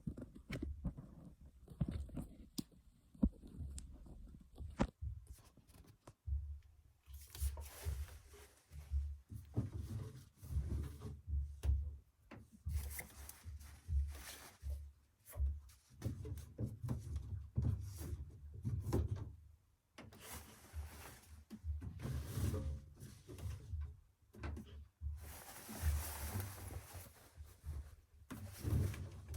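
Zanussi FL984CN washing machine drum turning a load of laundry on a 35° programme. The tumbling load makes irregular low thuds, and water swishes in stretches of several seconds.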